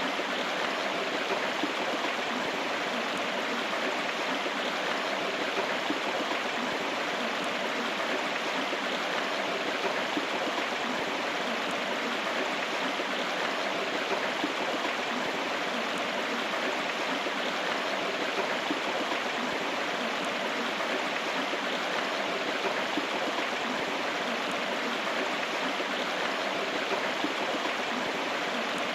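River water running over stones: a steady, unbroken rushing and babbling.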